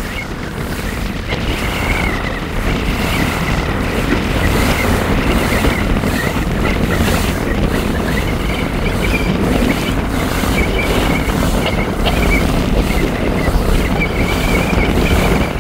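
Wind buffeting the microphone over the rush of water from a moving boat, swelling over the first couple of seconds, with a faint wavering whine above it.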